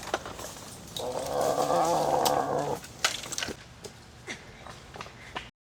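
A drawn-out, pitched, animal-like vocal sound lasting about two seconds, starting about a second in, followed by faint clicks and rustles.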